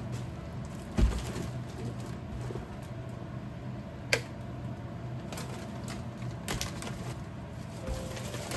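Groceries being unpacked onto a kitchen counter: a dull thump about a second in as a loaded shopping bag is set down, a sharp tap about four seconds in, then light handling of plastic food packs, over a steady low hum.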